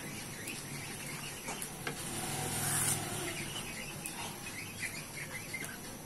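Short, high bird chirps, several in quick succession in the second half, over a low steady hum and the soft stirring of a wooden spatula in coconut milk heating in a metal wok.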